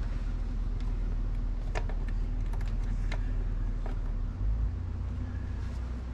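Light clicks and ticks of hands working wire connections with a hand tool, over a steady low rumble, with a dull bump about four and a half seconds in.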